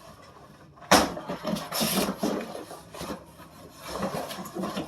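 Rummaging in a box: a sharp knock about a second in, then irregular rubbing and scraping as things inside are moved about.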